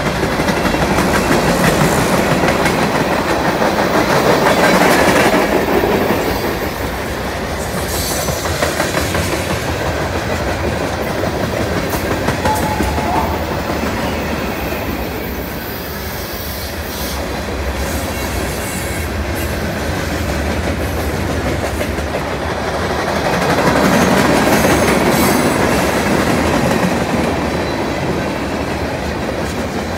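Freight train cars (tank cars and boxcars) rolling past: a steady rumble of steel wheels on the rails with a clickety-clack over the rail joints, swelling louder in the first few seconds and again past the twenty-second mark.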